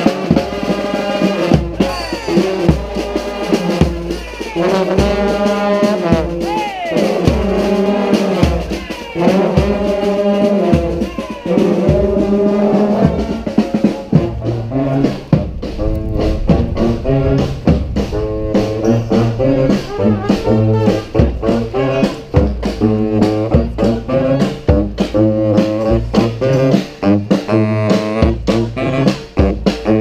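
A street brass band playing a New Orleans brass-band tune: trumpets, trombone, saxophone, clarinet and sousaphone over snare and bass drums. About halfway through, the horn lines drop back and the drum beat comes to the fore.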